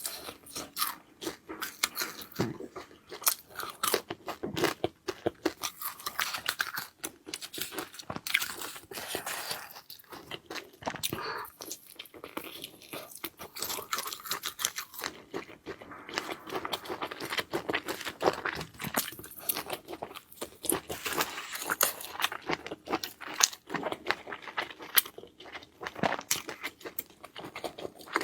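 Close-miked eating: rapid crunching bites and chewing, a dense run of crisp, irregular clicks.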